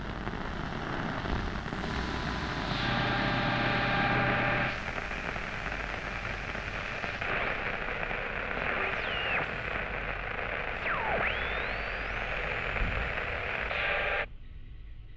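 Handheld radio being tuned: loud static hiss that shifts abruptly from one band of noise to another, with a stretch of steady whining tones and whistles that slide down and then up about halfway through. The static cuts off suddenly near the end.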